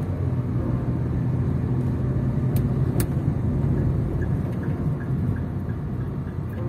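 Steady low rumble of road and engine noise inside a moving car's cabin. Two sharp clicks come about two and a half and three seconds in, and a faint, even ticking of about three a second starts around four seconds in.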